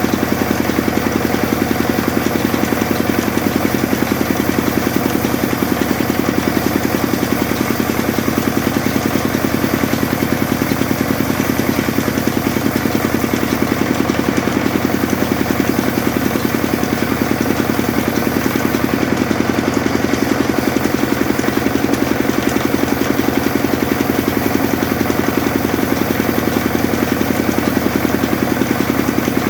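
Sawmill machine running steadily with a fast, even beat and a constant hum, no cut starting or stopping.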